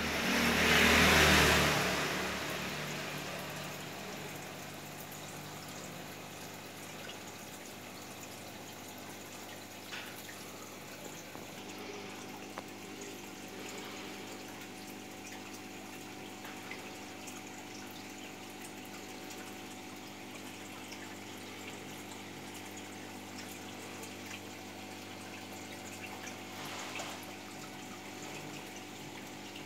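Aquarium pump running: a steady wash of moving water with a low steady hum and a few faint clicks. It opens with a loud rush of noise lasting about two seconds.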